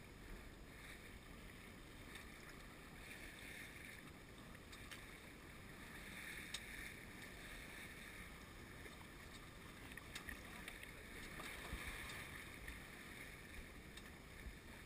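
Water rushing along the hull of a Grand Surprise sailboat under sail, with wind: a faint steady hiss that swells and eases every few seconds, with a few faint ticks.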